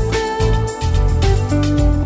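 Instrumental background music led by guitar, a held melody moving from note to note over a bass line with a steady beat.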